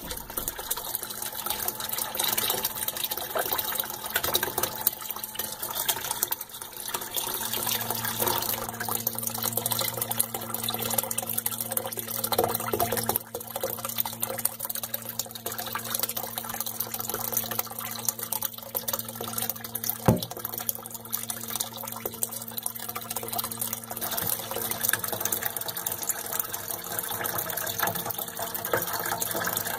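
Paired 12 V DC submersible radial pumps running under water and throwing a jet of water up in a head test, the water splashing back into the tank. A low steady hum comes in about 7 seconds in and fades out near the end, and there is one sharp click about 20 seconds in.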